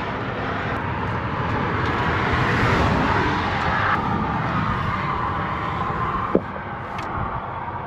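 Highway traffic going by, a steady rushing noise, with one vehicle's pitch falling as it passes. A single sharp click comes near the end.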